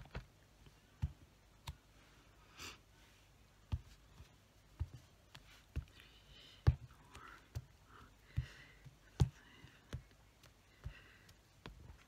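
Light taps and knocks of a small clear acrylic stamp block against the ink pad and the paper planner page, roughly one a second, the loudest a little past the middle.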